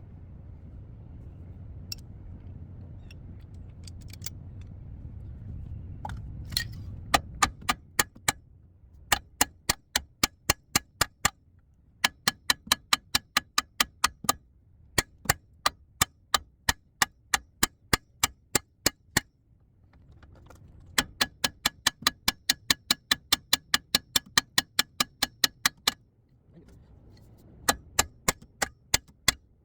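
Hand ratchet clicking in runs of quick, even clicks, about four a second, with short pauses between runs, as a nut is run off the tie rod. A low rumble comes before the clicking starts, about seven seconds in.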